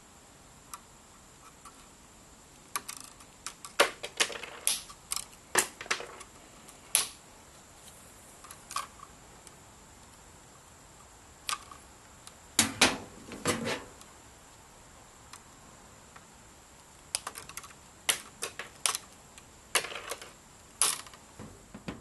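Wire cutters snipping 14/2 house wire to length: irregular sharp clicks and snaps in three clusters.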